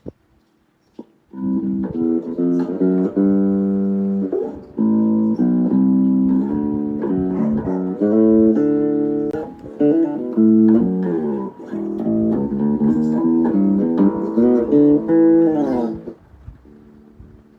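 Guitar being played: a run of plucked notes and chords that starts about a second and a half in and stops near the end.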